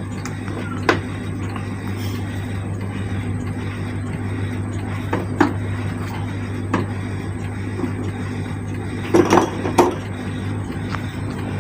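Scattered metallic clinks and taps of hand tools on metal parts, with a quick cluster of louder clinks near the end, over a steady low hum.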